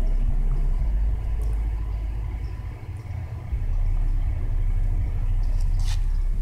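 A steady low rumble throughout. Near the end come a few short crunching clicks as a dog starts chewing a Twizzler.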